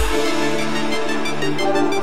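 Electronic runway music: steady held chords with no drum beat, coming just after a run of falling bass sweeps.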